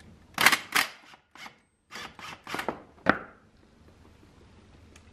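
Ryobi cordless power tool run in several short bursts on the brake-line banjo bolt at the caliper, undoing it, with a sharp click about three seconds in.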